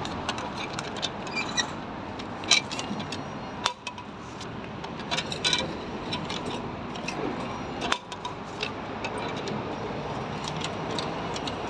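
Yen banknotes rustling and clicking as they are handled and fed into the bill slot of a self-service fuel pump's pay machine: a string of small sharp clicks with a few louder ones, over steady background noise.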